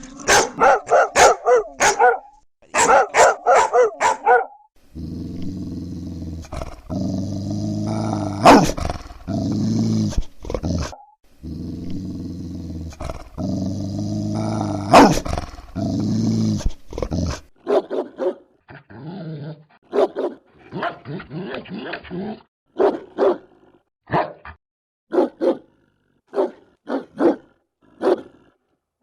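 Dogs barking: a quick run of sharp barks, then a long, low, continuous growl, then barks again, spaced out and more separate.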